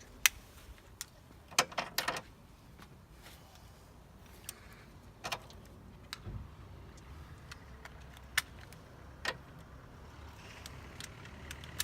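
Metal socket-set tools clinking while water pump bolts are tightened: a handful of sharp separate clicks of a socket, extension and ratchet, a second or more apart.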